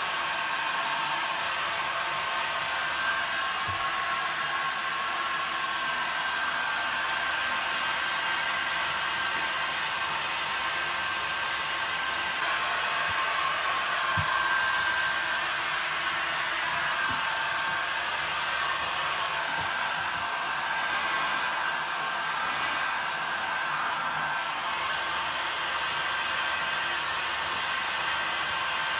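Handheld hair dryer running steadily, a continuous rush of air with a faint steady whine from its motor.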